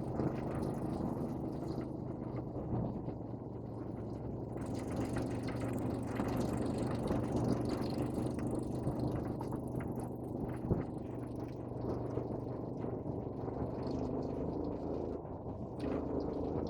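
Vehicle engine running steadily at an even speed, with a constant low hum throughout.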